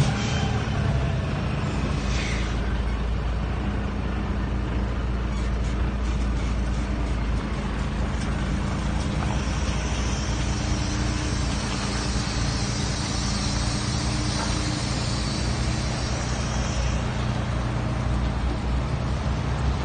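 Heavy truck's diesel engine running steadily with a low hum. A high hiss joins it for several seconds past the middle.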